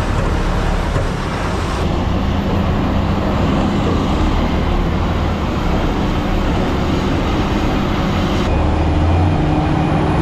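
Red Autocar silage truck's engine running steadily while driving across a corn field, heard from inside the cab as a loud, continuous rumble with road and drivetrain noise.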